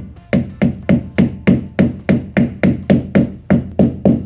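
Rubber mallet tapping a dust cap onto a Ford Capri's front wheel hub, a quick even run of blows at about four a second, seating the cap over the adjusted wheel bearing.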